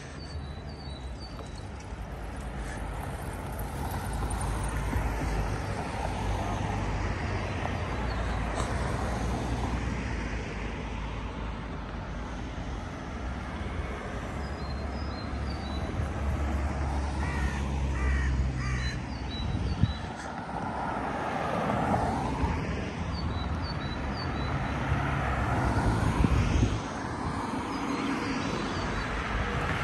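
City street ambience: a steady traffic rumble, with a crow cawing three times in quick succession about two-thirds of the way through.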